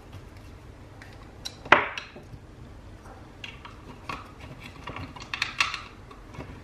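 Hands handling a plastic power-outlet housing and a screwdriver on a plywood bench: one sharp knock about two seconds in, then scattered light clicks and taps.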